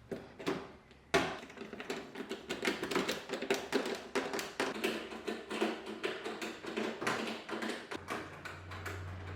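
Hand tools working the screws that hold the cabinet door to the dishwasher: a sharp knock about a second in, then a quick, uneven run of clicks and rattles. A low steady hum sets in near the end.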